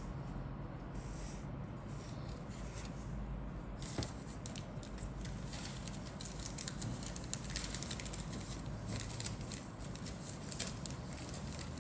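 Small plastic clicks and light rustling from model-kit sprues being handled, sparse at first and more frequent from about a third of the way in, over a faint low hum.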